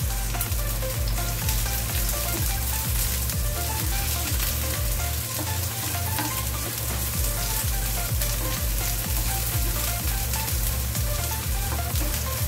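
Sliced onion and ginger sizzling steadily in hot oil in a nonstick frying pan as they are sautéed, with the scrape of a spatula stirring them.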